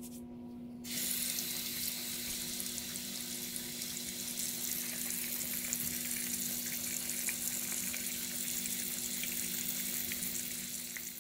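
Bathroom sink faucet turned on about a second in, its water running steadily into the basin.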